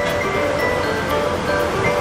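Background music: a light melody of short held notes changing pitch, over a steady hiss-like haze.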